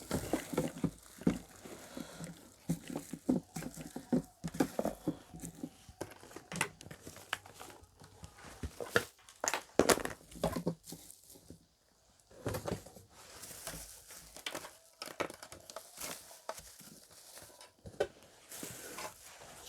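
Packaging being handled: irregular rustling and crinkling of paper and cardboard, with scattered knocks and clicks as boxes and speakers are moved and set down.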